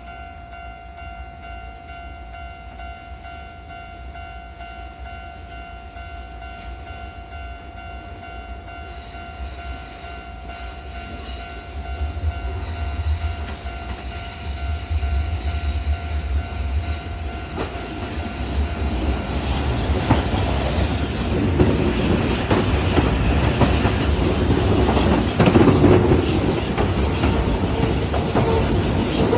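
A train approaching on the tracks, its rumble building from about halfway. It is loudest in the last third, with wheels clattering over rail joints. A steady ringing tone holds through the first half.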